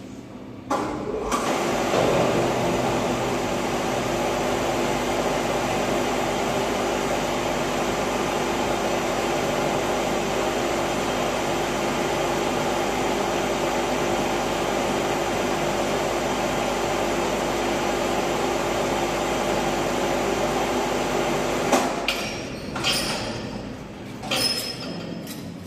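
Electric arc welding on a steel chassis frame: a steady arc crackle that starts about a second in, holds for about 21 seconds and cuts off suddenly. A few short scrapes and knocks follow near the end.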